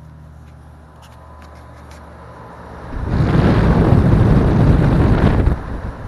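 2003 Lennox Elite 1.5-ton heat pump outdoor unit running with a steady low hum; about three seconds in, the air blast from its top-discharge condenser fan rushes loudly into the microphone, then cuts off suddenly about two and a half seconds later.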